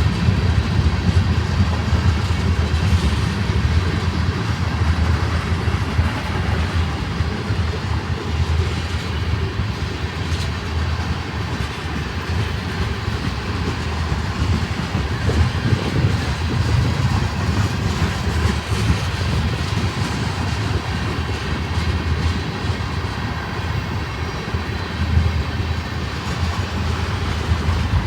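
Freight train rolling past, a steady rumble of its cars' wheels on the rails.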